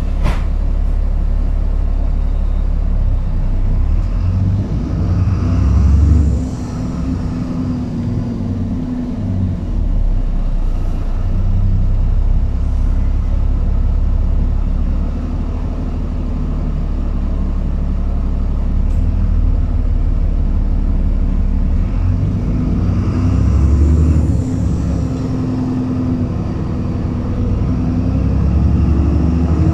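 Dennis Trident 2 Enviro400 double-decker bus heard from the upper deck on the move: a continuous low engine and road rumble whose engine note swells twice, about five seconds in and again past twenty seconds, as the bus pulls away and picks up speed. A single sharp knock sounds right at the start.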